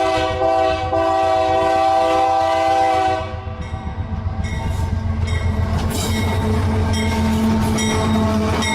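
Real train sound effect: a train horn sounding a chord of several notes, held for about three seconds, then the rumble of the moving train with wheels clicking over rail joints at a regular beat.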